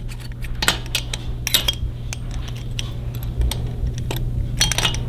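Light metallic clinks and taps of an S&S adjustable push rod being worked up through its tube into a Harley-Davidson Twin Cam 88 engine to seat against the rocker arm, with a cluster of clinks near the end, over a steady low hum.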